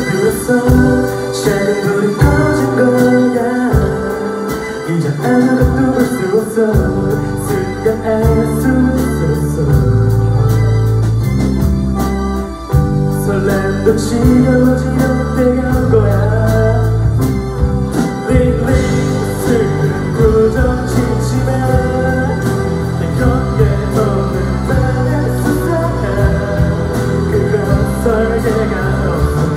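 Live rock band playing a song: electric and acoustic guitars, keyboards and drums, with a voice singing. About seven seconds in, the bass and a fuller beat come in.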